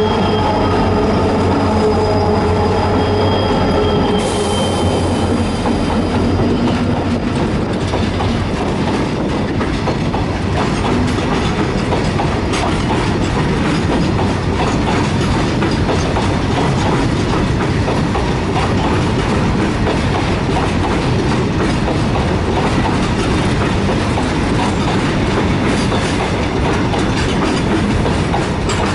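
Goods train passing close by at speed. A diesel locomotive's engine drone fades in the first few seconds, then a long rake of freight wagons rolls past with a steady clatter of wheels over the rail joints.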